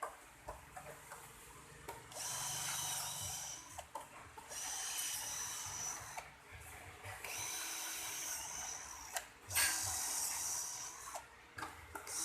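Power tool running in four bursts of a couple of seconds each, with clicks and knocks between them, during metalwork on box fans.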